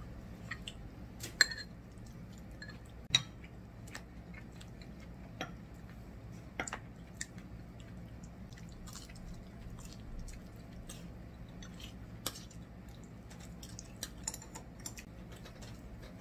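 Eating sounds: chopsticks and a spoon clicking against ceramic bowls and plates, with chewing. Scattered sharp clinks, the loudest two about one and a half and three seconds in, over a steady low room hum.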